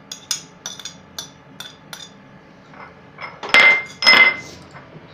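Chopped vegetables being knocked off a china plate into a batter bowl: a run of light clicks and taps of crockery and spoon, then two loud ringing clinks of china, the second about half a second after the first, past three and a half seconds in.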